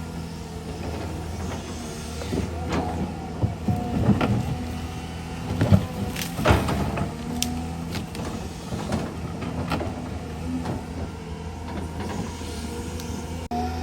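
Excavator at work: a steady diesel engine hum with a hydraulic whine, and scrapes and knocks of the bucket in the ground, the loudest knocks about six seconds in.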